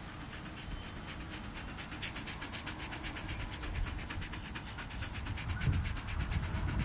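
A dog panting fast and evenly, with short breaths in quick succession, over a low rumble.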